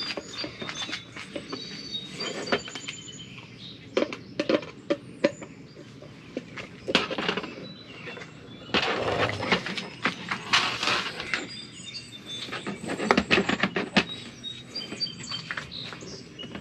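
Hand tools and screws working on the smoker's sheet-metal body: scattered sharp clicks and taps, with short bursts of rapid clicking and rasping as screws are set. Birds chirp in the background.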